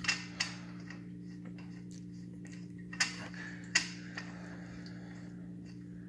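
A few light, sharp clicks as a spark plug is screwed by hand into the cylinder head of a YD100 two-stroke engine, over a steady low hum.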